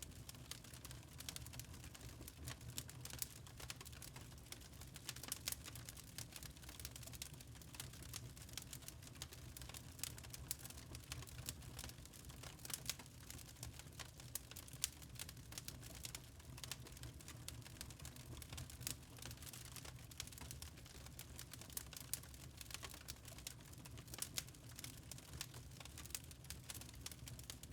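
Fire crackling in a fireplace: many small, irregular pops and snaps over a steady low rumble.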